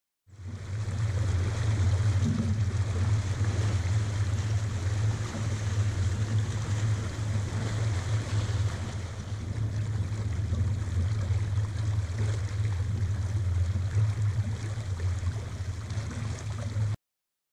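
Water rushing along the hull of an X-332 sailboat under way, with a heavy, fluttering wind rumble on the microphone. The sound cuts off abruptly near the end.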